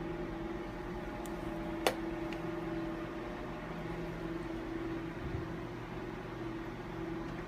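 Steady mechanical hum of running equipment, holding two fixed tones, with one sharp click about two seconds in.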